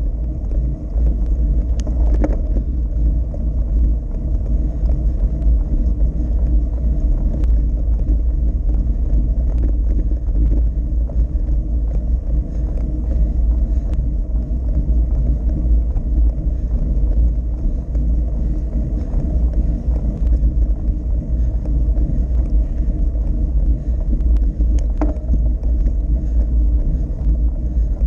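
Steady low wind rumble buffeting the microphone of a bicycle-mounted camera while riding a road bike along a highway. There are two brief clicks, one about two seconds in and one near the end.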